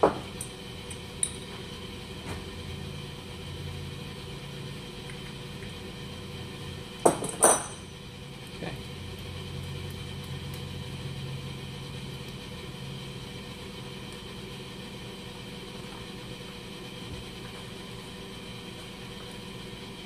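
Brass water shut-off valve parts clinking and knocking against metal as they are handled at a bench vise, with a sharp double knock about seven seconds in, the loudest sound. A steady low hum runs underneath.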